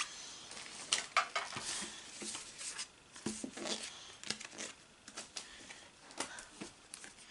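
Pokémon trading cards being gathered up off a playmat by hand: irregular light taps, clicks and rustles of card stock.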